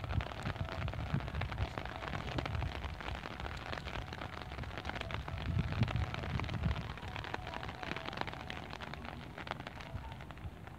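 Rain pattering on an umbrella canopy overhead, a dense crackle of many small drop hits, with uneven gusts of low wind rumble on the microphone, strongest around the middle.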